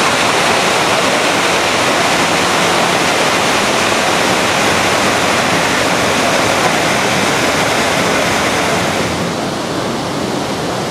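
Steady, loud rushing noise that eases slightly about nine seconds in.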